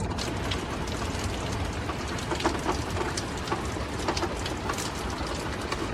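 Rainwater dripping and pattering in scattered irregular taps after a thunderstorm, over a steady low rushing noise.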